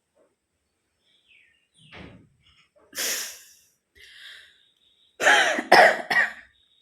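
A woman's breathy sniff about three seconds in, then a loud burst of three quick coughs close together near the end.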